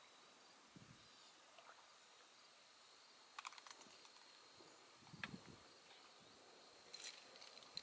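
Near silence: faint outdoor ambience with a thin steady high tone and a few soft clicks about halfway through and again near the end.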